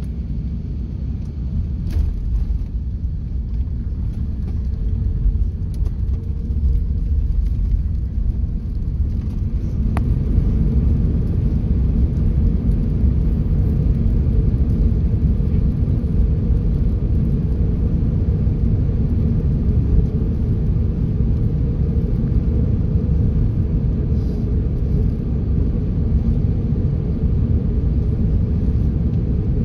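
Steady low rumble inside the cabin of an Airbus A380 on its landing roll, spoilers raised. It grows louder about ten seconds in.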